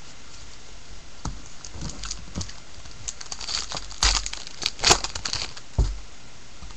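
Foil wrapper of a baseball card pack being torn open and crinkled: a few scattered clicks and rustles, then a dense run of sharp crackling, loudest about four to five seconds in.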